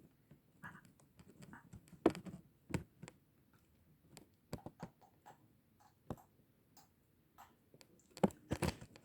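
Scattered light clicks and taps of kitchen utensils on a bowl and containers, at an uneven pace, with a few louder knocks near the end.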